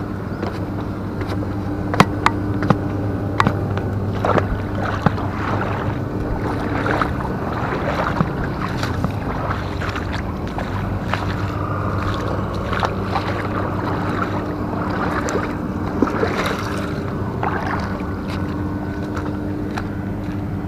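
Steady low hum of a running engine. A few sharp clicks and knocks stand out over it, mostly in the first five seconds.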